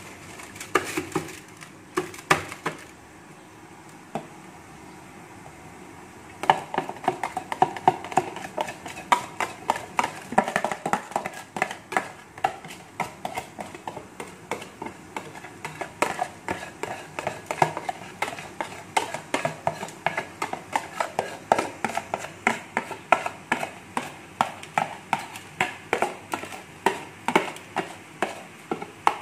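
Plastic container of sticky rice being tapped against an aluminium steamer pot to knock the grains loose onto the steaming tray. A few sharp taps come about a second in, then a pause of a few seconds, then steady tapping about twice a second.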